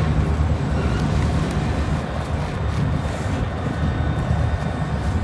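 Freight train cars rolling slowly across a railroad bridge: a steady low rumble of wheels on the rails, with faint clicks from the wheels and couplers.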